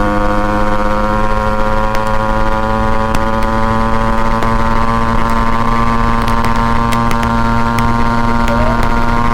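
Yamaha RX 135's two-stroke single-cylinder engine running steadily under way, its note climbing slowly as the bike gathers speed.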